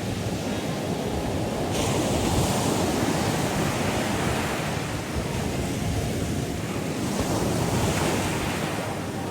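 Ocean surf rushing steadily, with a wave breaking about two seconds in and another swell near the end.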